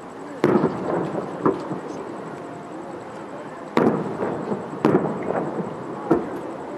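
Aerial firework shells bursting: about five sharp booms a second or so apart, each trailing off in a rolling echo.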